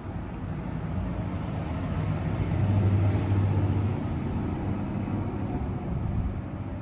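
A motor vehicle passing by: a low engine hum that swells to its loudest about three seconds in, then fades.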